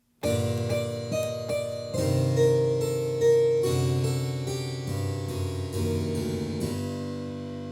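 Intro music: a harpsichord-like keyboard playing a series of notes, fading down near the end.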